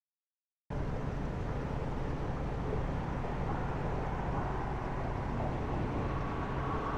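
Silence for under a second, then a steady low background noise of the outdoors that sets in abruptly and holds even, with no distinct events.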